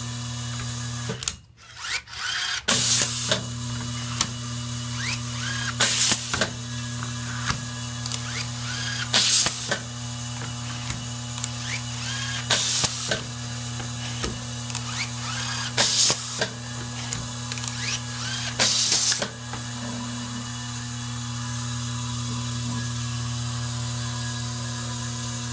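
Vibratory screw-feeder bowl humming steadily, with light ticking of screws, while an Atlas Copco handheld screwdriver runs screws into an appliance part. Each screw-driving cycle, fed through the tube to the driver, makes a short noisy burst, six in all about three seconds apart. The hum cuts out briefly about a second in.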